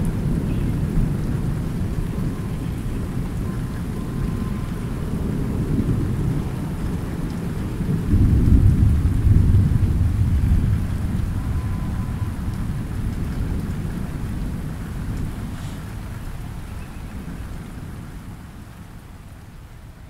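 Thunder rumbling, with a louder roll about eight seconds in that slowly dies away, over light rain falling on a pond's surface.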